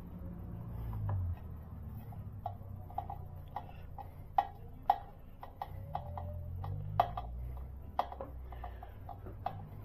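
Sharp, irregular clicks, about one or two a second, of a Phillips screwdriver turning the screw that holds the air filter in the air box of a 2022 Honda Monkey 125, over a steady low hum.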